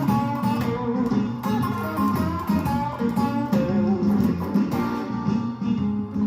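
Electric guitar playing blues, a run of picked notes over low notes.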